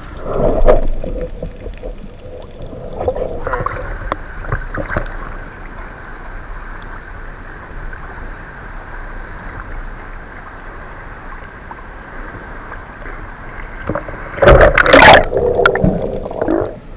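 Water sloshing and gurgling around a camera at the sea surface, with a thin steady whine through the middle. Near the end there is a loud rush of splashing and bubbles as the spearfisher dives.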